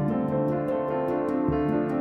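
Instrumental background music: sustained keyboard chords over a bass line that changes every second or so, with a quick, steady ticking beat.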